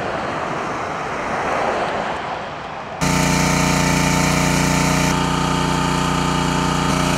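A car drives past on the road, a rush of tyres and engine that swells and then eases. About three seconds in this cuts abruptly to the loud, steady drone of a small engine running at constant speed.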